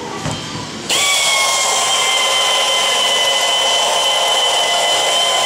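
Pneumatic air tool starting about a second in and running steadily, a high whine over air hiss, while aluminium rivets are set into steel body panels.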